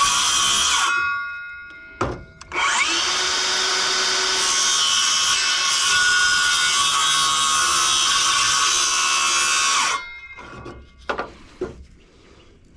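A handheld electric power tool running at high speed with a high-pitched whine. It winds down about a second in, and there is a knock at about 2 s. It spins back up just before 3 s, runs steadily, and cuts off abruptly about 10 s in.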